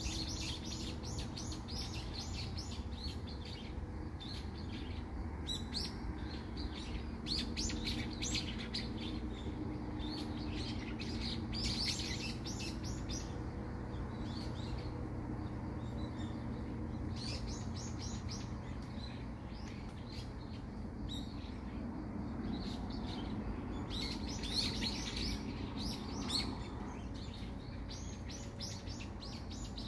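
Small birds in trees chirping in rapid bouts of quick high notes, over a steady low background hum.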